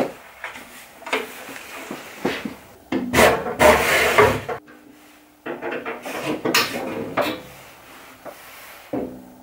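Bandsaw's metal sliding table extension being pulled out along its rail: a few light knocks, then two stretches of metal sliding and rubbing, the louder one about three seconds in.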